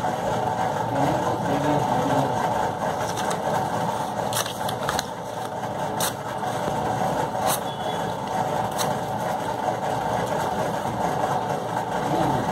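A steady mechanical hum, like an engine or motor running in the background, with a few short clicks in the middle.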